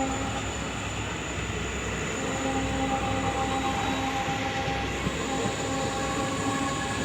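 Twin WDP4D diesel locomotives humming steadily under a low rumble as the train pulls out, the hum's tones fading and returning.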